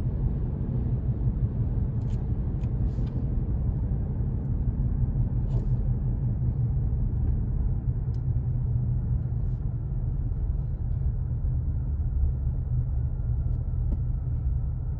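Steady low rumble of a car driving, road and engine noise heard from inside, with a few faint clicks.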